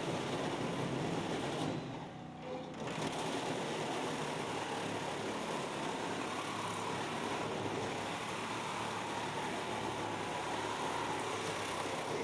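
Corded reciprocating saw (Sawzall) running as its blade cuts through the sheet-metal skin of a truck's sleeper cab. The saw sound drops away briefly about two seconds in, then runs on steadily.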